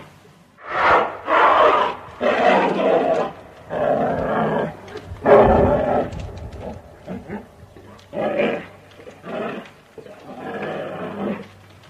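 A bear growling in a series of short, rough calls, each lasting up to about a second. The calls are loudest in the first half, and fainter ones follow after a short gap.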